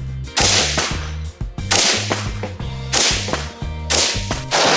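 Several AR-15 rifle shots in 5.56 fired in slow aimed succession, about one a second, each a sharp crack with a short fading echo, over background music with a bass line.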